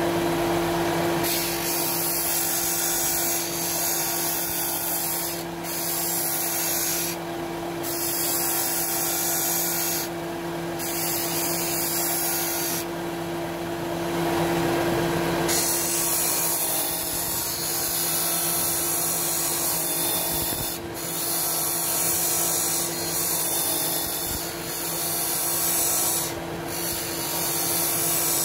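Bench disc sander running with a steady motor hum while thin strips of wood are pressed against the spinning sanding disc. The high sanding hiss comes and goes in repeated passes and drops out briefly several times as the wood is lifted away, the longest break a little before the middle.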